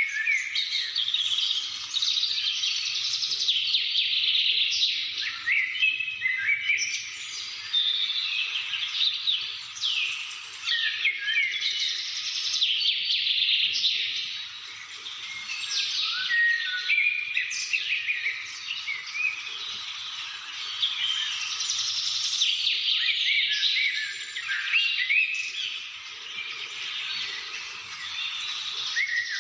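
Many small birds chirping and singing at once: a dense, unbroken chorus of quick high chirps and short whistled sweeps.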